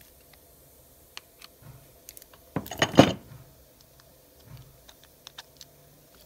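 Small clicks and knocks of a lever grease gun and a metal air-drill gear housing being handled while grease is packed into the gears, with a short, louder clatter about three seconds in.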